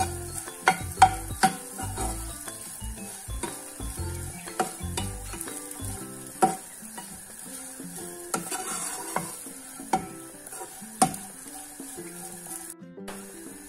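Metal spatula scraping and knocking against a nonstick frying pan as semolina and vegetables are stirred while they roast, with a light sizzle underneath. The sharp clicks of the spatula on the pan come irregularly, thickest in the first two seconds.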